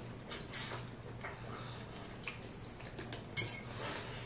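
Faint eating sounds: a metal fork tapping and scraping on a plate in short, scattered clicks, with chewing and finger-licking.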